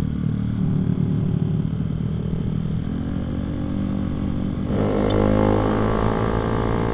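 Honda Sonic 150R's single-cylinder engine running under way. The revs climb a little about three seconds in, then the throttle opens near five seconds in and the engine runs louder and harder.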